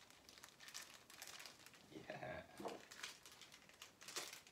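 Faint crinkling of thin plastic wrapping being handled and unwrapped, a string of small irregular crackles.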